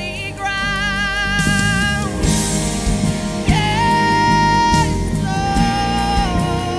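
Christian worship song: a singer holds long notes with vibrato over a backing band.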